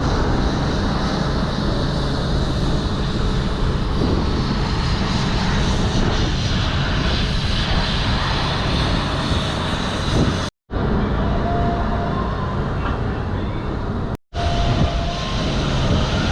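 Steady outdoor rushing noise, fairly loud and heavy in the low end, broken twice by a moment of silence.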